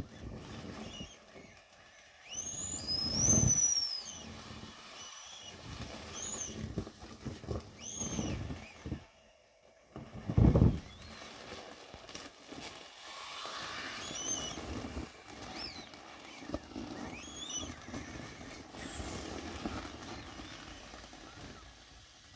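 Inflatable vinyl bunny squeezed and handled: short high squeaks of vinyl rubbing on vinyl, a few at a time throughout, among dull thumps and plastic rustling, the loudest thump about ten seconds in.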